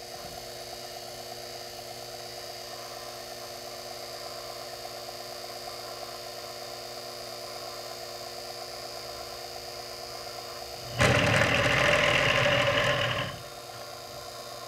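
Sherline mill spindle motor running steadily at about 800 rpm, a steady whine with hum. About eleven seconds in, the 1/4-inch carbide end mill touches off on the shaft and cuts for about two seconds, a loud cutting noise that then stops.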